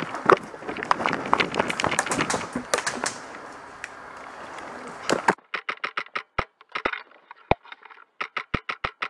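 Footsteps crunching through dry leaf litter and twigs, dense and irregular with bursts of louder cracks. About five seconds in the background cuts out and the sound breaks into an even stutter of short clicks, about five a second, with dead silence between them.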